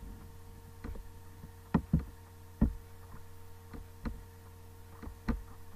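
About eight sharp, irregularly spaced clicks from a computer mouse being clicked while drawing on and right-clicking a slideshow, picked up close to the microphone, over a steady low hum.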